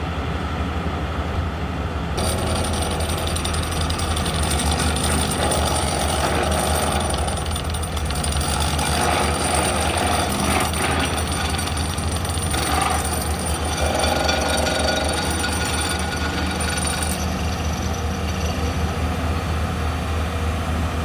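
Excavator-mounted vibratory hammer driving steel sheet piles: a steady, heavy, rapidly pulsing low vibration, with a higher clatter that comes in about two seconds in and eases off near the end.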